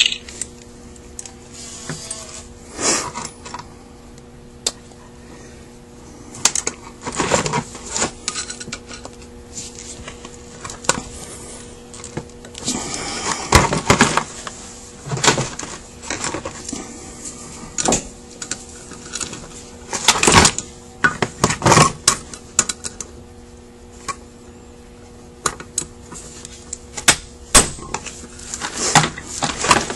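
Metal parts of a Carter WA-1 carburetor and bench tools clinking, clattering and scraping as the carburetor is handled and taken apart by hand: scattered sharp clicks with a few longer scrapes, over a faint steady hum.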